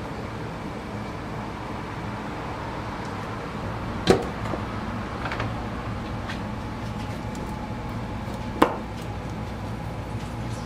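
Kitchen handling sounds: two sharp knocks about four and a half seconds apart, with a few lighter clicks between them, over a steady low hum.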